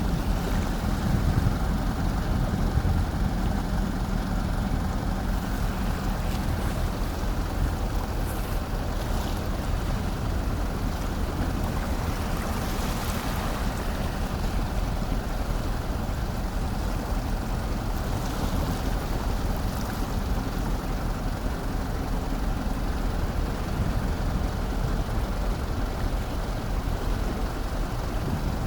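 The Seikan ferry Hayabusa entering harbour: a steady low rumble mixed with wind and water noise, without change in level.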